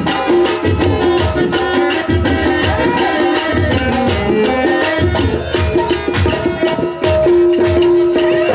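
Traditional Indian music: a rapid hand-drum rhythm under a melody line that settles into a long held note near the end.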